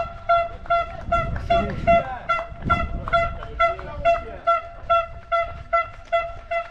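A bell rung in a quick, steady rhythm, about two and a half ringing strokes a second with a clear pitch, stopping near the end. It is typical of spectators shaking cowbells along the trail.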